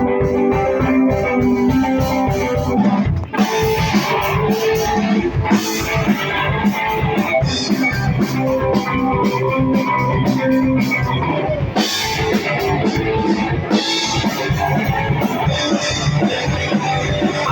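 A rock band playing live with guitar and drum kit, no singing. Held guitar notes ring for about three seconds, then the full band comes in with steady drumming and repeated cymbal crashes.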